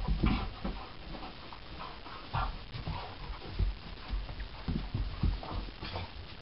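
Two dogs, a yellow mixed-breed and a black greyhound, play-fighting: scuffling with irregular thumps and panting, without barking.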